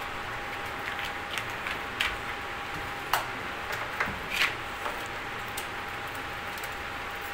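A brush working a white coating over a fibreglass cooler mould, giving a scattered run of light clicks and taps about one to five seconds in, over a steady background hiss with a thin high whine.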